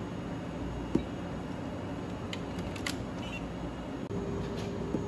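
A few light clicks of fingertips tapping a POS touchscreen over a steady room hum. About four seconds in, the sound cuts and a steady low tone continues.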